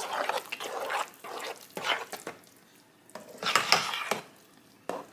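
A spoon stirring a thick, wet dressing mixture in a baking pan: irregular squelching strokes with the spoon scraping and clicking against the pan, a short pause in the middle, and a sharp click near the end.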